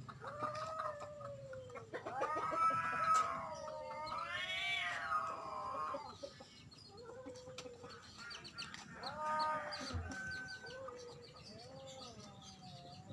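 Domestic cat yowling in heat: a series of drawn-out, wavering calls, the loudest two in the first half.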